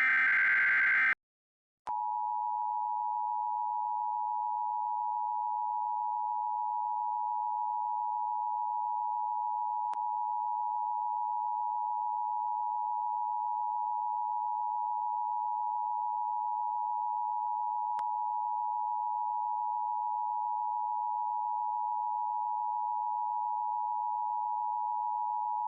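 The tail of an Emergency Alert System digital header burst, a harsh data screech lasting about a second. About two seconds in, the EAS attention tone starts: a steady, unbroken beep just under 1 kHz.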